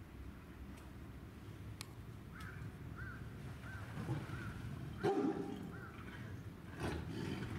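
A tiger growling at a lion through a fence in short outbursts: a weak one about four seconds in, the loudest about five seconds in, and another near seven seconds. A bird gives short, evenly spaced chirps underneath.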